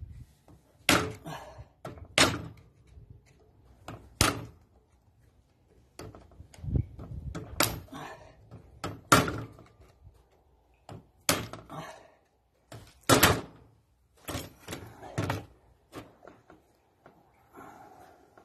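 Irregular sharp metal clicks and knocks, about a dozen, as a screwdriver pries and taps at the Bendix drive pinion on the nose of a Paris Rhone starter motor.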